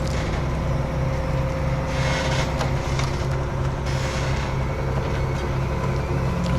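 Diesel engine of heavy equipment running steadily. A hiss joins it about two seconds in and stops about two seconds later.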